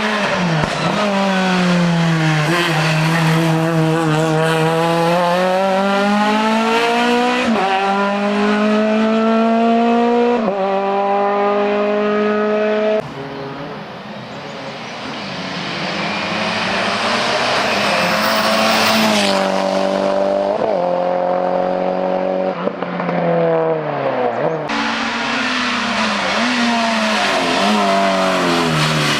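Race car engines accelerating hard, the pitch climbing and then dropping back at each gear change. The sound changes abruptly twice, from one car to the next.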